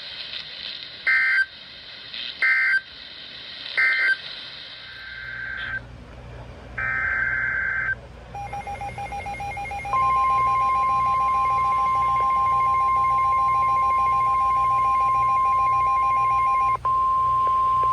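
Emergency Alert System signalling over weather radio. First come three short, shrill two-tone data bursts a little over a second apart: the end-of-message code closing one warning. After more digital tones, from about ten seconds in a single steady, loud 1050 Hz NOAA Weather Radio warning alarm tone sounds, with a short break near the end, announcing the next warning.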